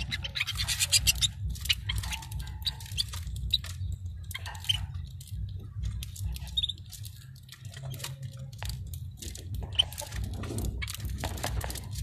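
Domestic canaries cracking and husking seed at their feeders: quick, irregular dry clicks and crunches, with a short high chirp now and then. A steady low hum runs underneath.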